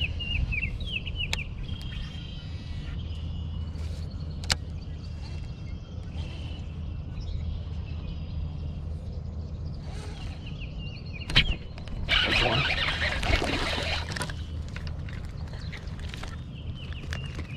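A largemouth bass splashing at the surface for about two seconds, some twelve seconds in, as it is hooked and lifted from the water. Around it, a small bird calls in short falling chirps, a few sharp clicks sound, and a low steady rumble runs underneath.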